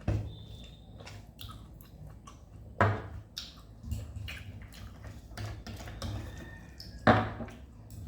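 Close-up mouth sounds of someone chewing a mouthful of rice with kohlrabi and potato curry, with small wet smacks and clicks. Three sharper, louder clicks stand out: one at the start, one about three seconds in and one about seven seconds in.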